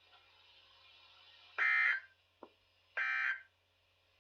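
EAS end-of-message data bursts from a NOAA weather radio: short, identical buzzy digital bursts, two in a row about a second and a half apart, signalling the end of the weekly test broadcast. A faint hiss comes before them.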